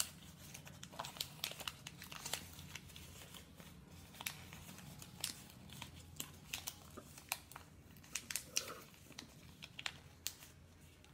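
Origami paper crinkling and rustling in the hands as a folded paper boat is worked and creased, in many short, irregular crackles.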